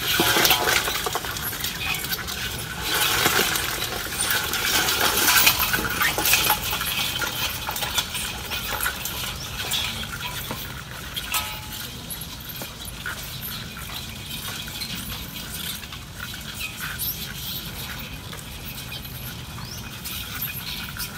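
Live crabs' legs and claws clicking and scraping on a metal basin, with louder knocks and scrapes in the first several seconds as a monkey reaches into the bowl, then lighter, scattered scratching.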